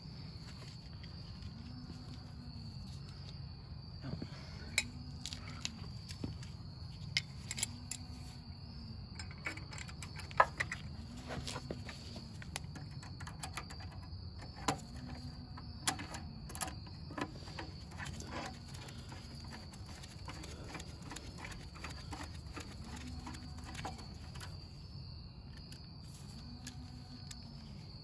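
Steady high insect chorus in the background. Over it, a scattered run of sharp clicks and clinks of hand tools and small metal parts being handled, thickest through the middle part.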